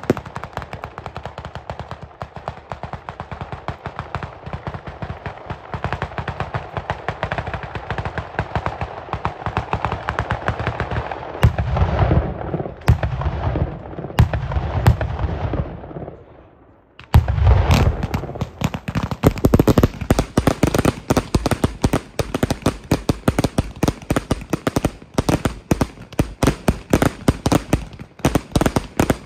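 Sicilian 'batteria alla lucchese' fireworks battery firing: a dense, rapid string of firecracker bangs that builds, dies away for a moment about two-thirds of the way through, then starts again as a new run of quick bangs.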